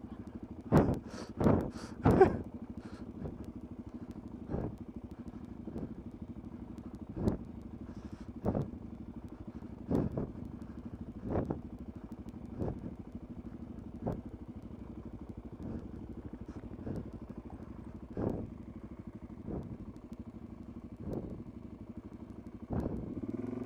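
Suzuki DR-Z400SM's single-cylinder engine running at a steady low speed, with sharp knocks and clatter about every second or so as the bike bounces over rough ground; the knocks are loudest in the first couple of seconds.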